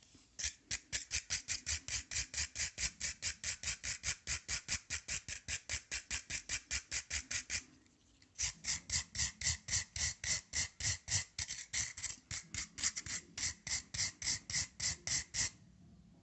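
Rapid back-and-forth scraping strokes on a rusty metal awl, about five a second, in two runs of about seven seconds each with a short break a little past the middle.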